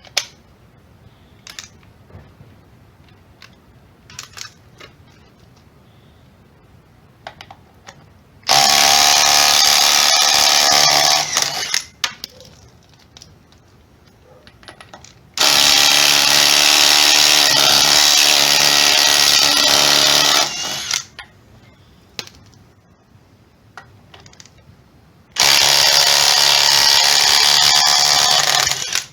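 Dewalt DCF902 12-volt 3/8-inch cordless impact wrench, wired to run from a truck battery, running in three bursts of a few seconds each, with the middle burst the longest. Faint clicks sound between the bursts.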